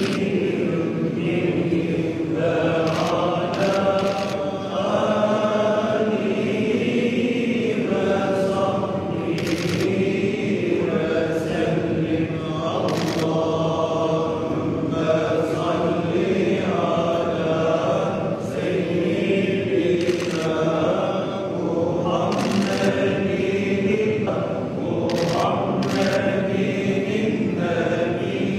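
Men's voices chanting a religious recitation in a slow sung melody, going on without a break, with a few sharp clicks now and then.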